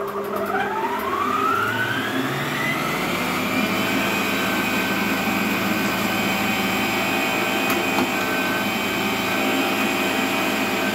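Electric stand mixer's meat-grinder attachment starting abruptly, its motor whine rising as it comes up to speed over the first two or three seconds, then running steadily while mincing raw meat.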